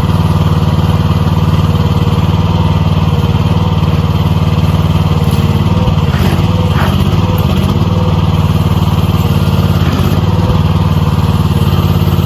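An engine running steadily at a constant speed, loud and unchanging.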